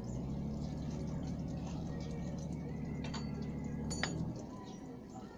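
A low, steady machine hum that cuts off about four seconds in, with two sharp metallic clicks shortly before it stops.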